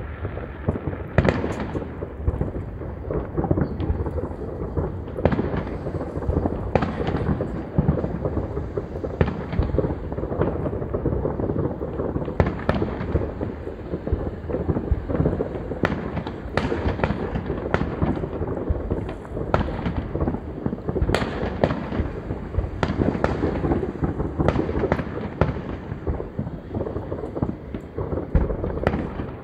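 Many fireworks going off across a town at once: a continuous rolling rumble of distant bursts, broken by frequent sharp bangs.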